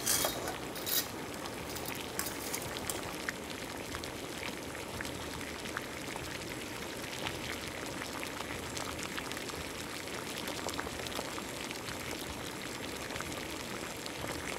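Salted water at a rolling boil in a steel stockpot with spaghetti cooking in it: a steady bubbling with small pops. At the start and about a second in, a few sharp clicks as the dry spaghetti slides off a plate into the pot.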